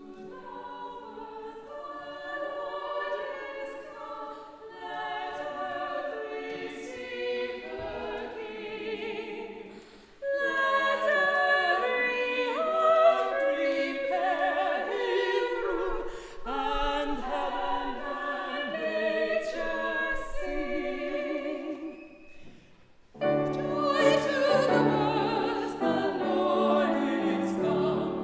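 Classically trained female voices, soprano and mezzo-soprano, singing a Christmas carol with accompaniment. The singing starts quieter, grows louder about ten seconds in, and near the end a fuller passage begins with low accompaniment notes underneath.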